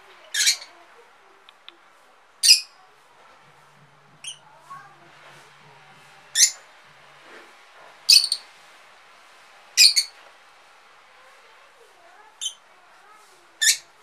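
Lovebirds giving short, shrill squawking calls, about eight loud ones spaced one to two seconds apart, with quieter chirps between them.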